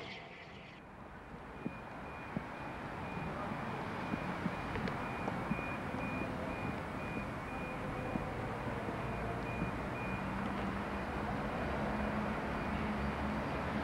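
Class 33 diesel locomotives, each with a Sulzer eight-cylinder engine, running as they approach, their engine hum growing louder. A few sharp clicks and a faint, high, evenly repeating beep sound alongside it.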